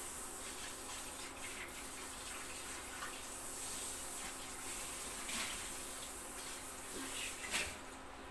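Water running from a kitchen tap, a steady hiss with a few light knocks, stopping near the end just after a louder clack.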